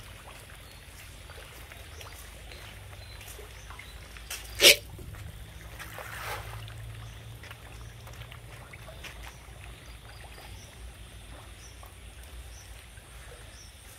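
Fish splashing at the pond's surface as they take thrown feed, over a steady background hiss of light rain. One loud, sharp knock stands out about four and a half seconds in.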